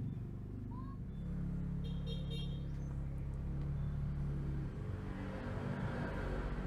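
A motor vehicle engine running steadily, with a brief high-pitched toot about two seconds in, and a rising rush of noise near the end.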